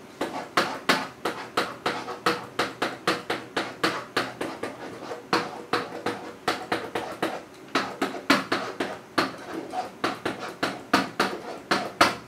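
Pen or stylus tapping and scratching on an interactive whiteboard as marks are written, a fast, uneven run of clicks, about three or four a second.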